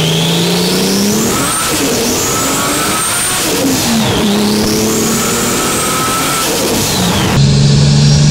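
Tuned Nissan Skyline R33's RB26 straight-six accelerating hard through the gears: the revs climb, drop at two gear changes and climb again, with a high turbo whine rising and falling with them. Near the end it switches to a steady engine note with a steady high whistle.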